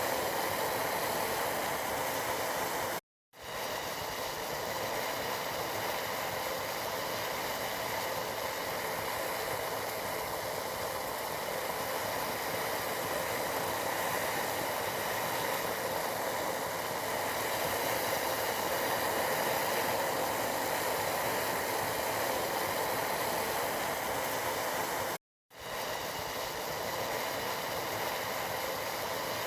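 Tea boiling in a pot, a steady hissing bubble. It cuts out completely for a split second twice, about three seconds in and near the end.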